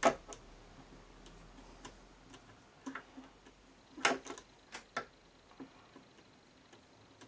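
Flathead screwdriver turning plastic screws in a record player's back panel: scattered sharp clicks and ticks, with a cluster of them about four seconds in.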